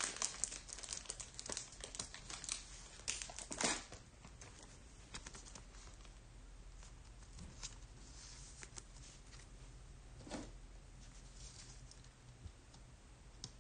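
Thin plastic card sleeve crinkling and rustling as a trading card is slid into it and then into a rigid plastic toploader. A dense run of sharp crinkles comes in the first four seconds, followed by fainter, scattered handling rustles and clicks.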